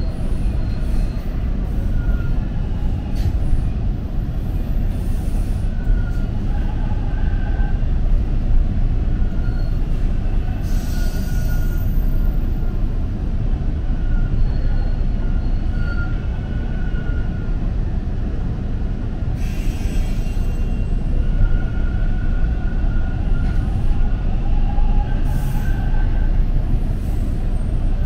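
Toronto TTC Line 2 subway train running: a loud, steady rumble of wheels on the track, with short, faint high squeals from the wheels on the rails every few seconds.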